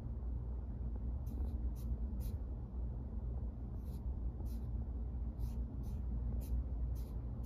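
About a dozen short, soft, irregular ticks of a fingertip tapping and swiping on an iPad's glass screen, over a steady low room hum.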